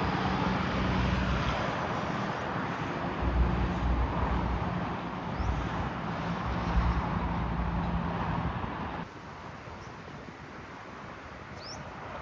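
Jet airliner engines running with a steady rumble and hiss under a low hum. The sound drops off abruptly about nine seconds in, leaving quieter background noise, and a short high chirp comes near the end.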